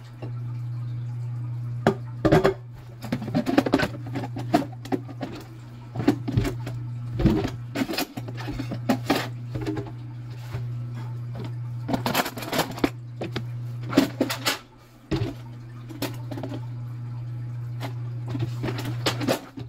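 A steady low machine hum, with irregular clatters and knocks of kitchen items being handled over it.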